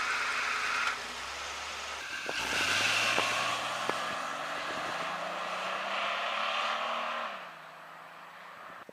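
1987 Pontiac Fiero GT's 2.8 V6 on its stock exhaust: the engine note climbs steadily from about two seconds in, then drops away and fades near the end. A few sharp ticks come while it climbs.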